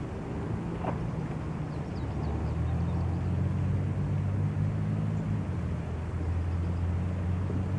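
A steady low motor drone over an even hiss, with a short rising squeak about a second in and a few faint high chirps soon after.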